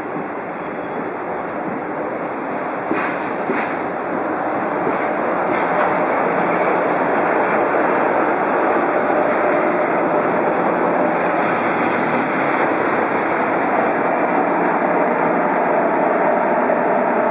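A JR Freight EF66 DC electric locomotive and its container flatcars rolling past at low speed, wheels clacking over rail joints a few times early on. The steady rumble of the train grows louder as the locomotive draws level, with a hissing, whining machinery noise over it.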